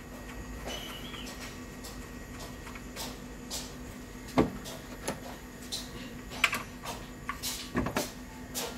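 Scattered clicks and knocks of hand tools and parts being handled on the car's radiator and front panel, with a sharp knock about halfway through and another near the end, over a faint steady hum.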